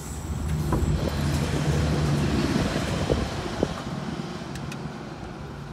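A Class 642 Desiro diesel multiple unit going by: its diesel engine hum swells over the first two to three seconds, then fades. A couple of sharp clicks come just past the middle.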